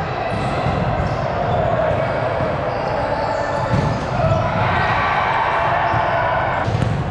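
Volleyball gym din: a continuous babble of indistinct voices with the thuds of volleyballs being hit and bounced, and a sharp hit near the end.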